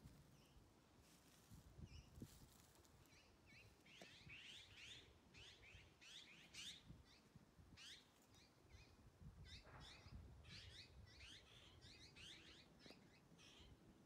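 Azure-winged magpies calling faintly: bursts of quick, high chirping notes, several to a burst, about four seconds in, again around six to seven seconds, and in a longer run from about ten to thirteen seconds.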